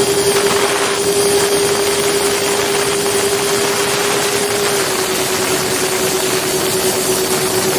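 Electric ducted fans of a radio-controlled model F-14 jet whining steadily in flight, heard from on board with air rushing past; the whine's pitch drops slightly about five seconds in as the throttle eases.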